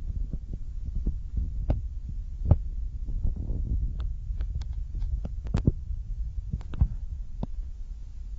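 Low rumble of wind and handling noise on a handheld camera's microphone, with irregular clicks and knocks as the camera is carried along. The sharpest knocks come about two and a half seconds in and again near the middle.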